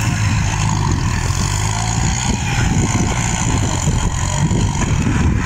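Tractor engine running steadily with a dense low rumble as the tractor pushes its front blade through brush and roots.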